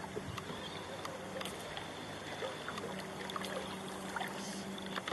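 Water lapping and trickling against a small boat's hull, with scattered small clicks and a faint steady hum that comes in about halfway through.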